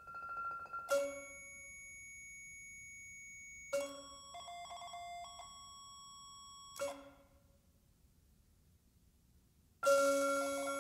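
Sparse contemporary percussion-and-electronics music: four sharp struck attacks about three seconds apart, each followed by steady bell-like ringing tones that stop suddenly. There is a brief shimmering flutter after the second attack and a near-silent gap before the last and loudest attack near the end.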